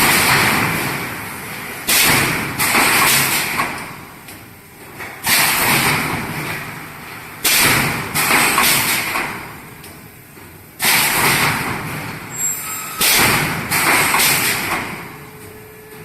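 3D panel wire mesh welding machine cycling: a series of sharp clunks, each followed by a noisy rush of sound that dies away over a second or two, coming every one to three seconds, sometimes two or three in quick succession.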